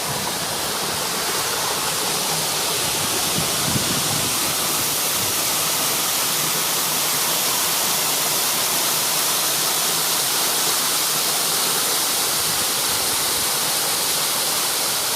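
Waterfall, water rushing and splashing in a steady, unbroken hiss.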